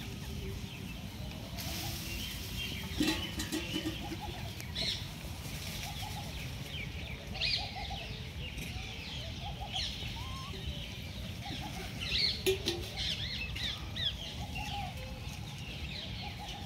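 Birds chirping in many short calls, with scattered brief lower calls, over a steady low rumble.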